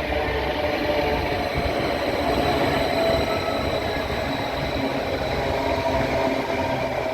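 Train running past, a steady rumble with several steady tones held over it.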